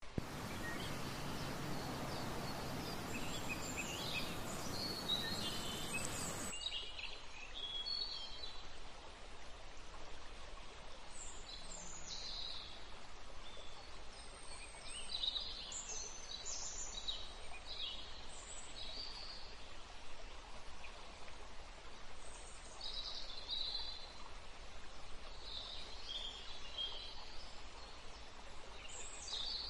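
Outdoor ambience: a steady hiss with birds chirping in short, scattered calls throughout. The hiss is louder for the first six seconds or so, then drops to a lower level.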